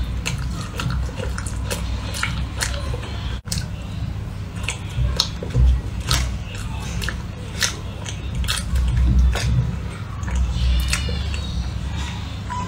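Close-miked chewing of a soft pink cream-filled baiyu roll, with irregular wet mouth clicks and smacks.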